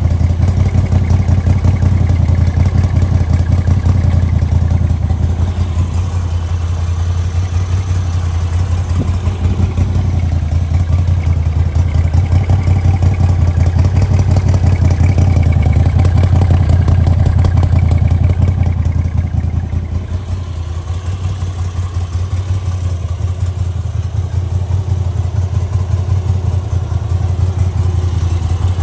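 Moto Guzzi V85 TT's air-cooled 853cc transverse 90° V-twin idling steadily, with a fast, even exhaust pulse. It drops somewhat in level about two-thirds of the way through, then comes back up.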